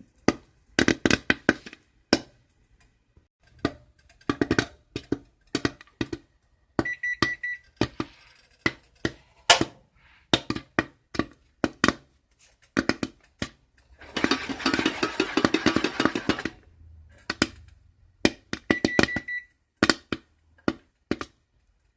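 Popcorn kernels popping in oil inside a covered pot on the stove: sharp pops at irregular intervals, thinning out as the batch nears its last pops, with a denser flurry about two thirds of the way through. A short high tone sounds twice.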